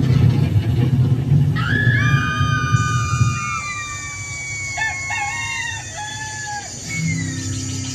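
Roosters crowing: several long, overlapping crows begin about one and a half seconds in, followed by shorter, broken calls. A low rumble runs under the first few seconds.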